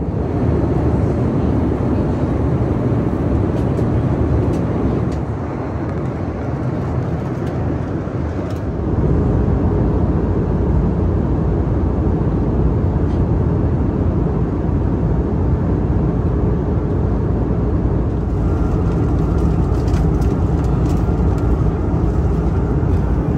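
Steady cabin roar of an Airbus A321neo in flight, airflow and engine noise heard from a window seat, strongest in the low end. It eases slightly about five seconds in, then comes back heavier in the low rumble around nine seconds in.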